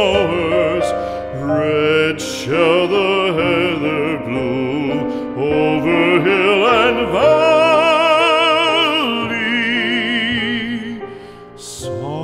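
Background music: a melody in long held notes with a wide vibrato over a steady accompaniment.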